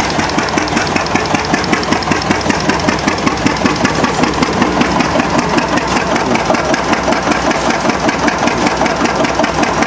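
Stationary engine with a large flywheel, mounted on a wheeled cart, running steadily with a rapid, even beat.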